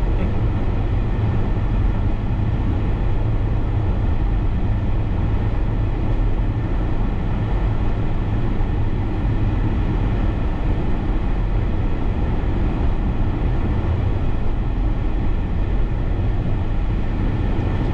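Steady road noise inside a moving car's cabin: a low rumble of engine and tyres with a hiss over it.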